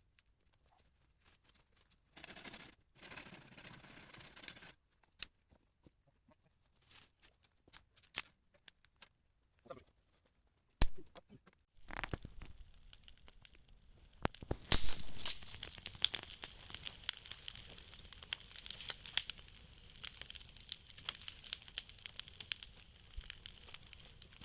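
A campfire being lit: dry kindling crinkled and torn by hand with a few sharp snaps, then from about 15 s in the wood fire catching and crackling steadily with many small pops.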